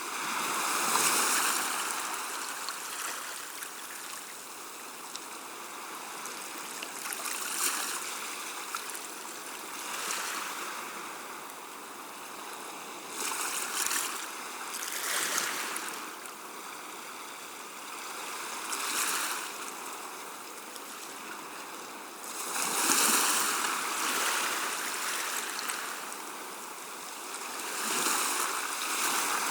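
Gentle sea waves washing in and drawing back, a soft surge of water noise swelling and fading every few seconds, with stronger washes near the start and about two-thirds of the way through.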